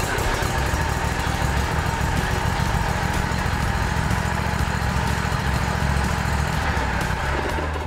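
Kawasaki FR651V V-twin engine on a zero-turn riding mower running steadily, freshly tuned up with a new spark plug, oil, filters and a Sea Foam fuel treatment.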